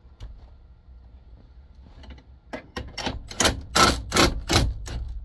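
Socket wrench working a steering-column mounting nut loose: a quick run of sharp rattling clicks, about four a second, starting about two and a half seconds in after a few faint knocks.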